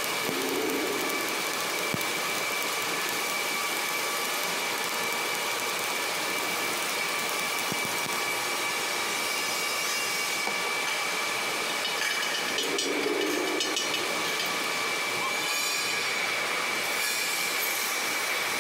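Steady machinery hiss in a welding shop with a constant high-pitched whine, and a brief low drone twice, about a second in and about two-thirds of the way through.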